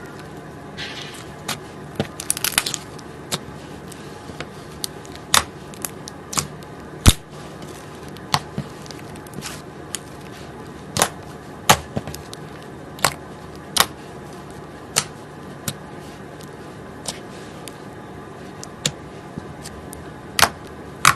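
Slime being pressed and stretched by hand, giving sharp irregular pops and clicks about once a second as air pockets burst, over a steady low hum.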